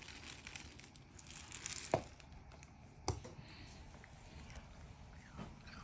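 Cat eating dry kibble from a ceramic bowl, with faint crunching and two sharp clicks about two and three seconds in.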